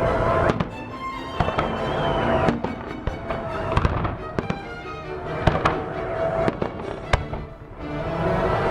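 Fireworks salute going off: repeated sharp bangs and crackle at irregular intervals throughout, with music playing at the same time.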